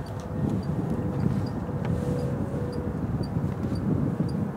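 Jet engines of a Boeing 767-400 on final approach to land, a steady low rumble that grows louder about half a second in, with a faint steady hum above it.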